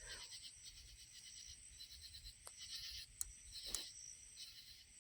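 Crickets chirping steadily in a fast pulsing trill, faint, with a few soft clicks in the middle.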